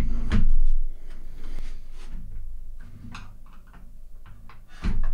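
Small plastic clicks and knocks of blaster parts being handled on a bench, with louder knocks in the first second and another near the end.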